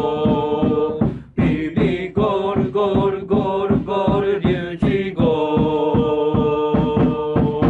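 Football supporters singing a player's chant in unison over a steady drum beat of about three beats a second, holding long notes; the chant stops abruptly near the end.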